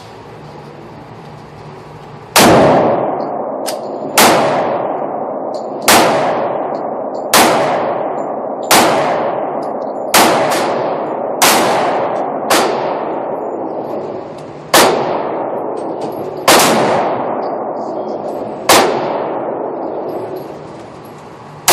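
A string of eleven single gunshots fired at an unhurried pace, about one every one and a half to two seconds, each with a long ringing echo dying away after it.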